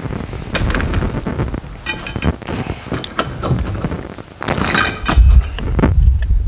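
Irregular crackling and soft thuds of footsteps and legs brushing through tall grass and weeds, with wind rumbling on the microphone over the last second or so.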